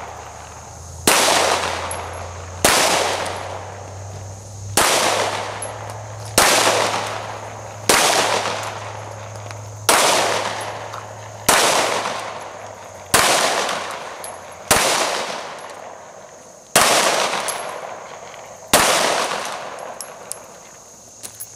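Handgun shots fired singly at a steady pace, about one every one and a half to two seconds, eleven in all. Each shot is sharp and leaves a long fading echo.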